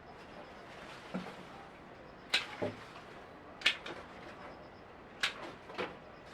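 Six sharp knocks or clacks at irregular intervals over a steady hiss.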